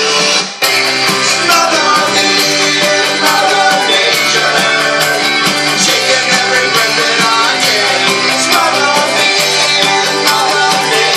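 Rock band playing an instrumental stretch of a song, guitars prominent. The band drops out briefly about half a second in, then comes back in full.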